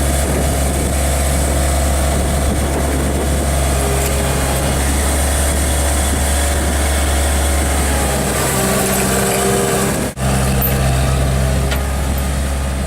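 Diesel engine of heavy earthmoving equipment running steadily, its note rising for a few seconds in the second half, with a momentary cutout about ten seconds in.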